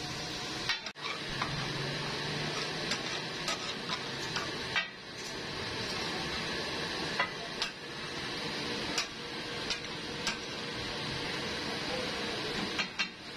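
Chicken sizzling steadily in oil on a large metal tawa griddle. A metal spatula scrapes and knocks against the griddle in sharp, irregular clacks.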